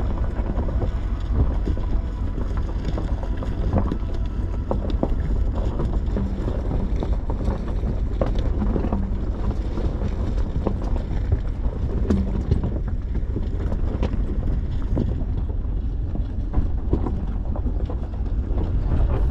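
4x4 vehicle driving over a rough, unsurfaced off-road track: a steady low rumble with many scattered knocks and clatters from the wheels and suspension, and some wind noise on the microphone.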